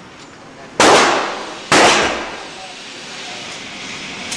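Two pistol shots from a Springfield XD 9 mm, about a second apart, each followed by a long echo off the walls of an indoor range.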